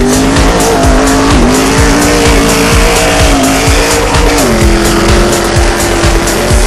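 Off-road race engines running hard, their pitch dropping in two steps like gear changes, over a music track with a steady beat.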